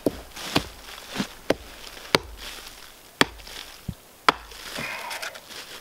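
Hatchet chopping a small freezer-burned codfish on a log: about eight sharp chops at an uneven pace, the blade going through the fish into the wood beneath. Some rustling handling near the end.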